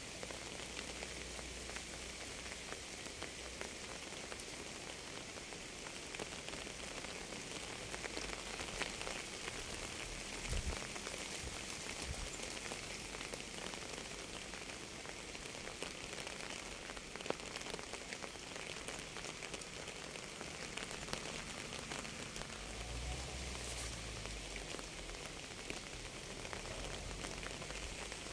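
Steady rain falling on a surface, a dense patter of drops, with a few brief low thumps about ten to twelve seconds in and a short low rumble a little past twenty seconds in.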